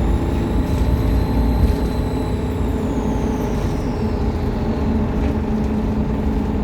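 Optare Solo bus engine running under way over a steady low drone, with a high-pitched turbocharger whine that climbs, holds and then falls away about three to four seconds in.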